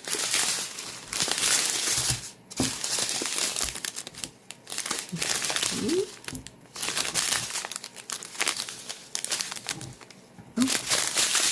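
Small plastic bags of diamond painting drills crinkling as they are handled, on and off with short pauses.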